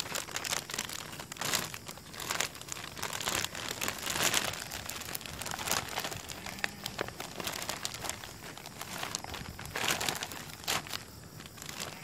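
A large clear plastic bag crinkling and rustling as gloved hands handle it and pull it down over a potted cutting. The crackles come in irregular bursts, louder about a second and a half in, around four seconds in and around ten seconds in.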